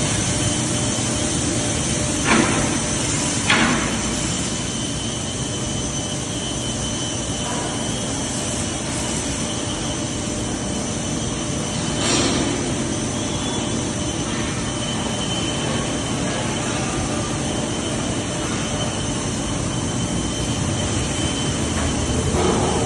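Four-roll plate rolling machine running with a steady mechanical noise, with a few short clanks, two close together a couple of seconds in and one about twelve seconds in.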